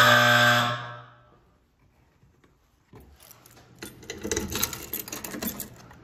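A fire alarm horn gives a loud, low, buzzing blast that cuts off within the first second and echoes briefly down the hallway. After a pause of about two seconds, a large ring of keys jangles and rattles against a fire alarm pull station as it is worked open.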